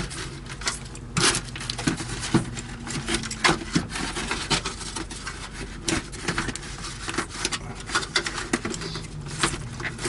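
Plastic housing of a Heng's Vortex II RV vent fan assembly knocking and rubbing against the ceiling vent frame as it is pushed up into the opening and lined up with the crank: irregular light clicks and taps.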